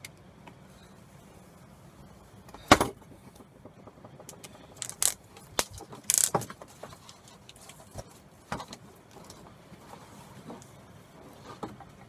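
Utility knife slicing along a cable's outer sheath, then the cable being stripped and pulled free: a string of scattered scrapes, clicks and light metallic rattles. The sharpest knock comes nearly three seconds in.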